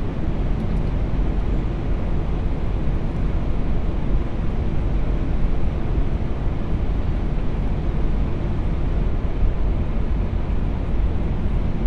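Steady cockpit noise of an Airbus A380 on final approach with flaps full: a constant low rumble and rush of air on the flight deck.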